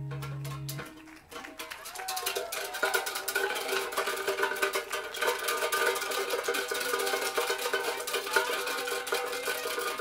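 Live band music from keyboards and drums. Low held notes stop about a second in, and after a brief lull a busy passage of rapid repeated notes takes over.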